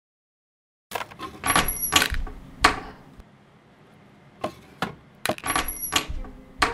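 Small metal objects clinking and rattling, sharp hits with a high metallic ring. They come in two bursts, the first about a second in and the second near the end, with a couple of single clicks between.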